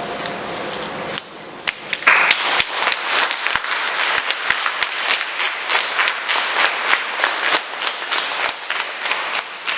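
Audience applauding: many overlapping hand claps that start about a second and a half in and keep going until just before the end.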